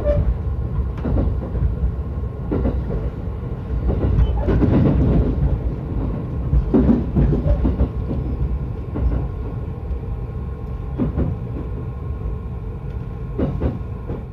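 Yokosuka Line commuter train running, heard from inside the carriage: a steady low rumble with irregular clacks of the wheels over rail joints.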